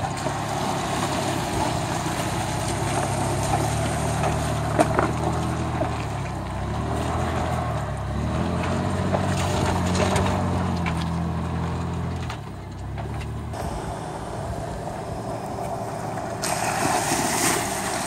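Toyota Tacoma pickup's engine running at low revs as it crawls off-road through mud and over rocks, the revs rising and falling, with a few sharp knocks about five seconds in. About two-thirds of the way through the sound cuts abruptly to a quieter vehicle engine.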